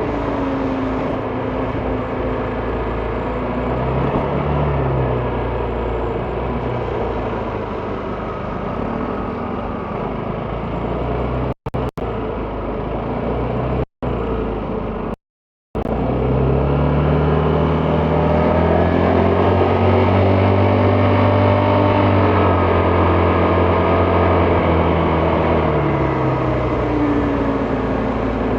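Vespa GTS 300 scooter engine running under way, its pitch rising and falling as the throttle opens and closes. The sound cuts out briefly three times around the middle.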